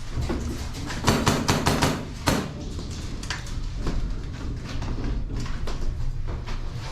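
Airsoft guns firing: a quick string of sharp shots about a second in, a single crack shortly after, then scattered lighter shots over low handling rumble.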